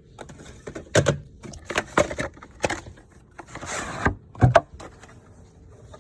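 Irregular knocks and clicks with a stretch of rustling: cables, plugs and equipment being handled. The sharpest knocks come about a second in and again about four and a half seconds in.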